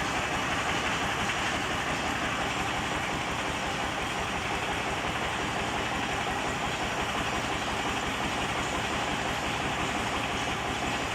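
DFQ-100W DTH water-well drilling rig running, a steady, loud mechanical din with a fast, even low pulsing underneath.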